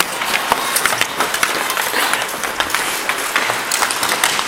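Ice hockey skates scraping and carving on the ice, with many short sharp clacks of sticks on the puck and ice.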